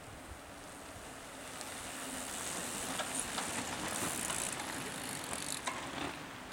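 A group of mountain bikes riding past on a dirt trail: knobby-tyre noise on the dirt swells as the pack comes close and eases off again, with scattered clicks and rattles from the bikes.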